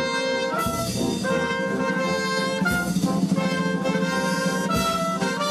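Brass band playing a slow, solemn piece: held brass chords that change every second or two, over a steady low note, with a drum stroke about every two seconds.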